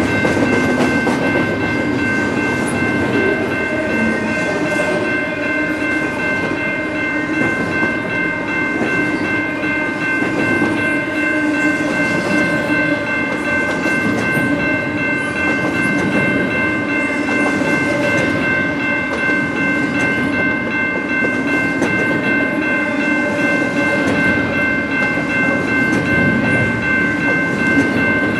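Double-stack intermodal container cars of a CN freight train rolling past: a steady rumble and rattle of steel wheels on the rails, with a steady high-pitched whine of several tones over it.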